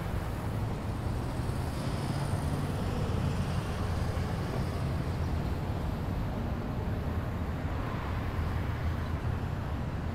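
City street ambience: a steady rumble of traffic with a low engine hum underneath.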